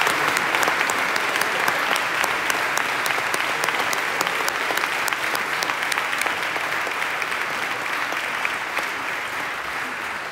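Audience applauding, a steady mass of clapping that slowly dies down toward the end.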